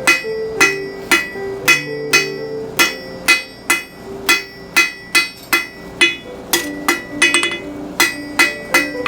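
Blacksmith's hammer striking steel on an anvil in a steady rhythm of about two ringing blows a second, with a quick run of lighter taps near the end, as a fire poker end is forged.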